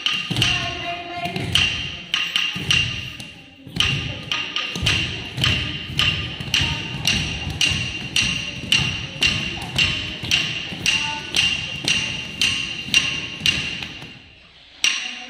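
Teacher's wooden stick beating time on a wooden block (tattukazhi and thattu palagai) together with bare feet stamping on a stone floor, the tatta adavu beat of a Bharatanatyam class. After a short pause about four seconds in, the strikes fall steadily at about two a second and stop near the end.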